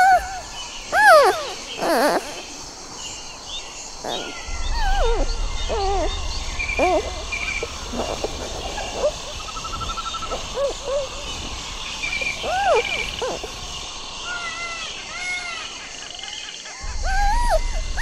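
Many short squeaky animal calls, each rising and falling in pitch, several overlapping at times, repeating throughout. A steady low rumble runs under them from about four seconds in until near the end.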